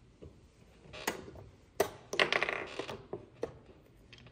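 Wooden chess pieces knocking on the board and against each other. Two sharp clicks come first, then a quick rattling clatter about two seconds in, then a few lighter clicks.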